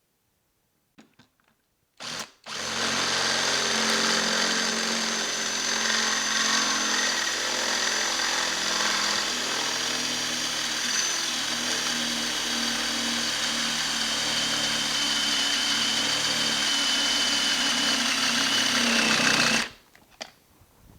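Cordless drill running under load, boring a hole through the tailstock casting. A quick blip about two seconds in, then a long steady run that stops abruptly near the end. The drill's battery is nearly flat.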